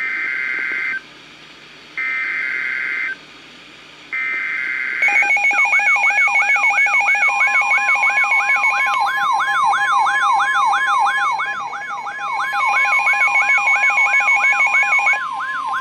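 NOAA Weather Radio alert start for a special marine warning: three roughly one-second bursts of screeching digital data tones (the SAME header), then a warbling alert alarm of rising chirps, about two and a half a second, over steady tones, with a long steady warning tone joining a couple of seconds later.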